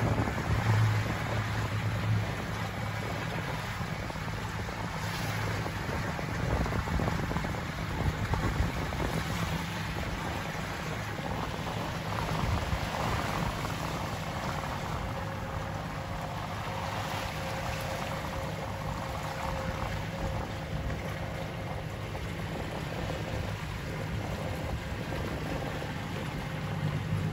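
Steady wind noise on the microphone with water hissing and splashing around a small motorboat under way.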